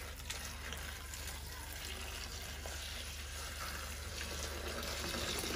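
A steady stream of water pouring into a stainless steel bowl of sliced eggplant and bitter melon, splashing over the vegetables as they are rinsed.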